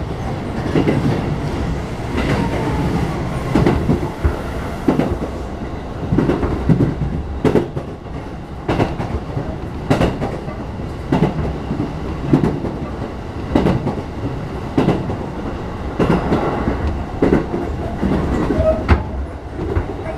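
Keihin-Tohoku Line commuter train heard from inside the car while running, with a steady rumble and the wheels clacking over rail joints about once a second, some clacks coming in pairs.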